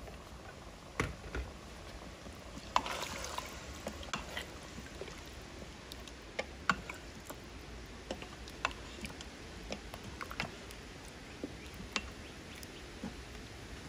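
Wooden spatula stirring a watery beef stew in a stainless steel Instant Pot inner pot: irregular light knocks of wood on the metal, with liquid sloshing.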